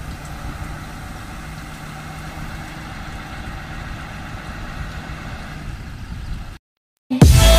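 Engine of a Sides 6x6 airport crash-rescue fire truck running steadily at a low, even speed. Near the end it cuts out and, after a brief gap, loud electronic music starts.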